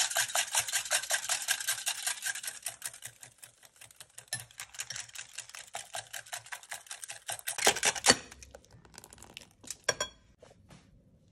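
Wire whisk beating eggs and flour in a glass bowl: rapid clicking of the wires against the glass, loudest at first and softer after a few seconds. A couple of louder knocks come about two-thirds of the way in.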